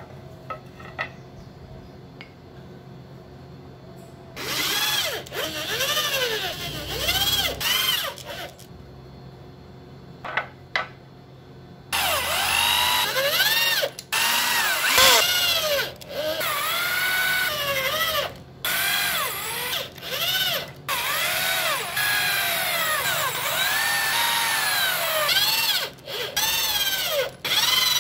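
Corded electric drill driving screws into wooden slats in repeated trigger-controlled bursts, its motor whine rising and falling in pitch with each squeeze. It starts after a few quiet seconds of light handling clicks, then runs in bursts with short pauses.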